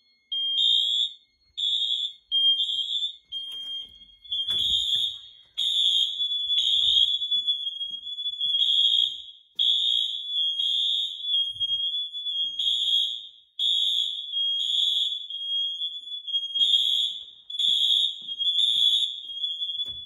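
Fire alarm system in alarm: several relay-tripped smoke alarms beeping out of step with one another over a steady high horn tone from the Wheelock MT horns on continuous.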